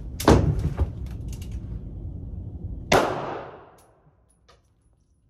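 Two handgun shots on an indoor range, about two and a half seconds apart, each with a ringing echo off the range walls. Fainter sharp clicks and knocks come between them.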